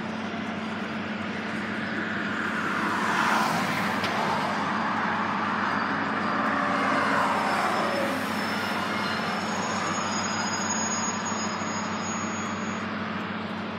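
Road traffic passing close by on a highway, two vehicles swishing past about three and seven seconds in, each swelling and then falling in pitch, over a steady low drone.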